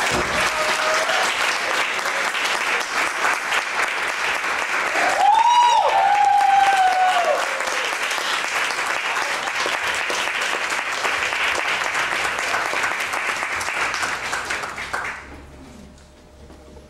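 Audience applauding, with a voice cheering about five seconds in; the clapping dies away about fifteen seconds in.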